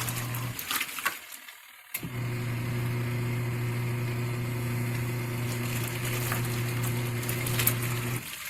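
Small portable washing machine's wash motor humming as it turns the water and clothes, with water swishing. The motor stops about half a second in, starts again about two seconds in and runs steadily until it stops near the end: the agitator pausing and reversing in its back-and-forth wash action.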